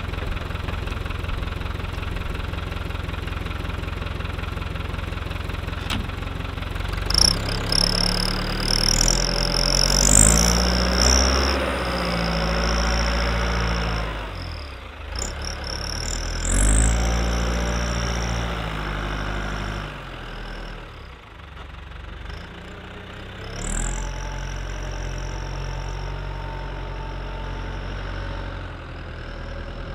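New Holland L85 tractor's diesel engine idling steadily, then revving up and down in several surges as it moves off, with a high whine coming in with the revs. It settles to a steady run near the end.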